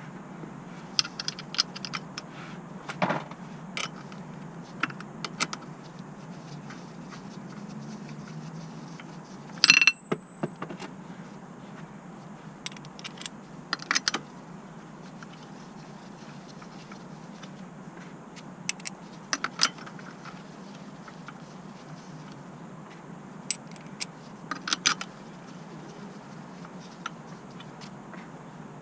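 Metal hand tools and parts clinking and knocking now and then during mechanical work, the loudest clink about ten seconds in with a short ring, over a steady low hum.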